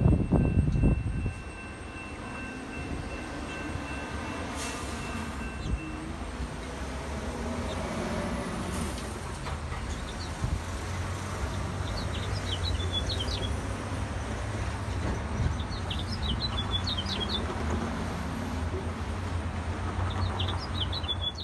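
Road traffic crossing the railroad after the gates lift: trucks and cars drive over the crossing with a steady low engine rumble. A steady crossing-signal tone stops about six seconds in, and birds chirp through the second half.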